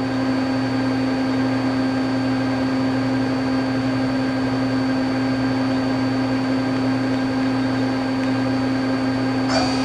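Daewoo DMV-400 CNC vertical machining center running with its spindle turning at 1,000 RPM: a steady machine hum with a few fixed tones.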